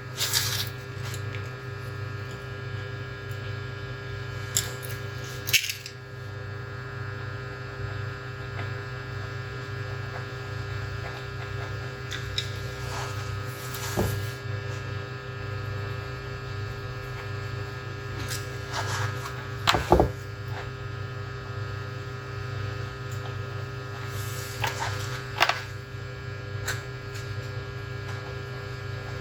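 Steady electrical hum from repair-bench equipment, with a few sharp clicks and taps of tools against the laptop motherboard during soldering.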